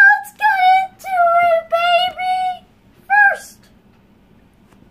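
A child singing wordless, very high-pitched held notes, several in a row for about two and a half seconds, then one short note a little after three seconds in.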